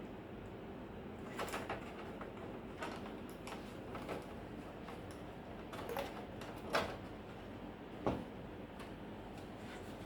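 Scattered clicks and knocks from handling tools and parts on a workbench, about six of them, over a steady low hum.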